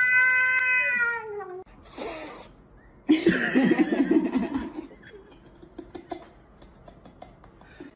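A grey cat gives one long, drawn-out meow in the first second and a half. After a brief burst of noise, a second cat makes lower, wavering yowls for about two seconds.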